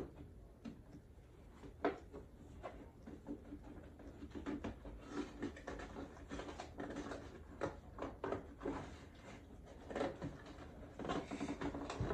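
Cardboard box with a clear plastic window being handled and opened: scattered knocks and clicks, with spells of denser rustling of cardboard and plastic packaging.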